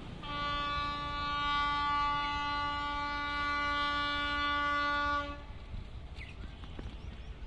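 Train locomotive horn sounding one long, steady blast of about five seconds at a single pitch, then cutting off.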